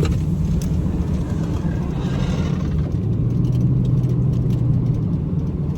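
Feed truck's engine and road noise droning steadily, heard from inside the cab while driving. A low engine tone steadies about halfway through.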